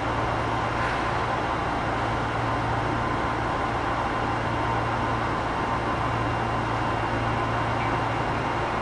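Steady hum and rumble of an Osaka Metro 25 series subway train, even throughout with a constant low drone and faint steady tones.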